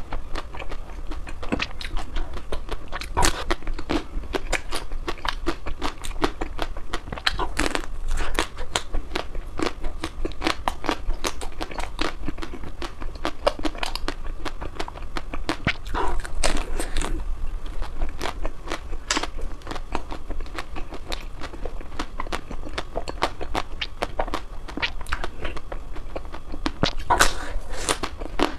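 Mouth chewing and biting ice cream: a dense, irregular run of small sharp clicks, with a few louder bites scattered through.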